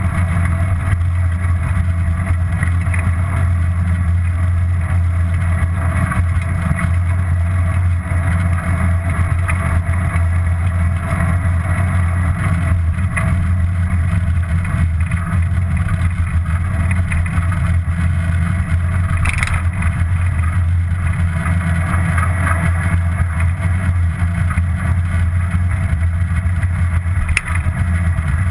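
Steady low rumble of wind and tyre noise from a bicycle in motion, heard on an action camera riding along with it, with a couple of faint clicks in the last third.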